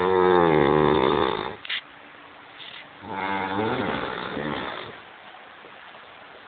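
A drunk man snoring heavily: a loud rasping snore in the first second and a half, then a second, weaker snore about three seconds in.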